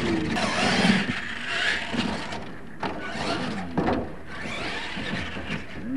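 Radio-controlled monster truck's electric motor whining and its tyres spraying dirt on a dirt course, with two sharp knocks about three and four seconds in as the truck tumbles onto its side.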